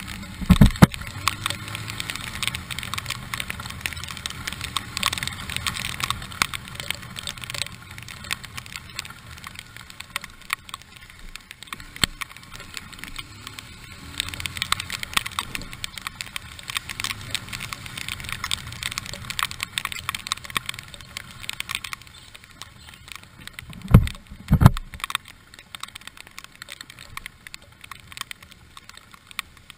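Motorcycle riding through heavy rain: the engine running under the hiss of tyres on the wet road and wind noise, with raindrops ticking on the camera. Two strong low thumps come about 24 seconds in, and a single one near the start.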